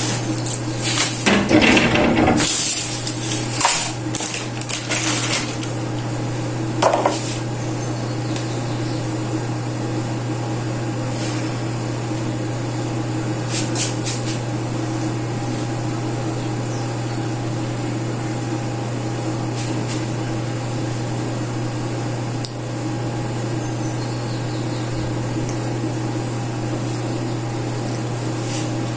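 A steady machine hum runs throughout. Over the first several seconds there is clattering and knocking of kitchen items.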